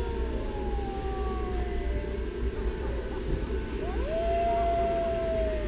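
Animatronic werewolf Halloween prop playing a recorded wolf howl through its speaker: one long howl slowly falling in pitch, then a second that rises about four seconds in, holds and sinks.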